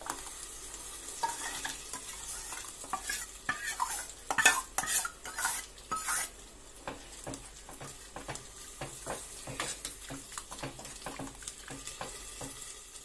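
Metal spoon stirring and scraping in a cooking pot, clinking against its sides, as cooked toor dal is mixed into the sambar; the clinks are densest in the first half and thin out near the end. A faint steady sizzle of frying runs underneath.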